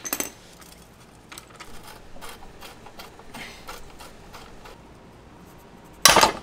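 Ratchet wrench clicking faintly and unevenly as it works the 13 mm bolts holding a rubber exhaust hanger on a steel exhaust muffler. About six seconds in comes a short, loud burst of rapid metal clatter.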